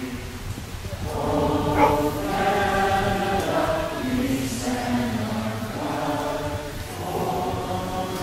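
A crowd of people singing together in unison outdoors, in slow phrases of long held notes.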